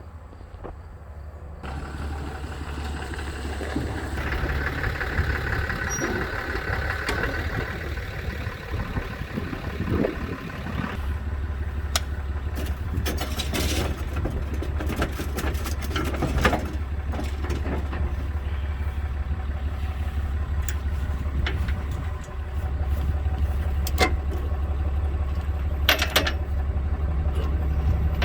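Pickup truck engine running with a steady low drone, under scattered clicks and knocks.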